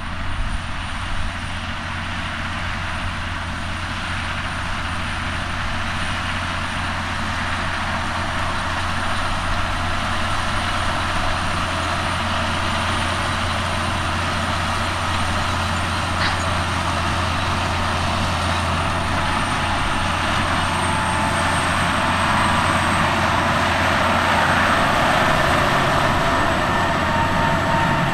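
John Deere 9430 four-wheel-drive tractor's six-cylinder diesel engine running steadily under load while pulling an air seeder, growing louder as it draws near and passes in the last few seconds.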